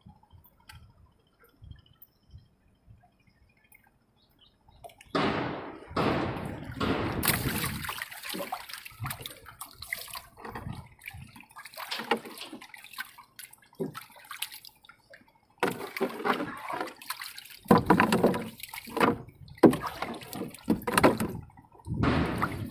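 Water splashing and sloshing in irregular bursts, starting about five seconds in after a few faint drips, with a short break past the middle.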